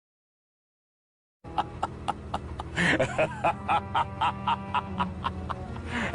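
Silence, then about a second and a half in a short music sound-effect clip starts, with a quick steady beat of about three strokes a second.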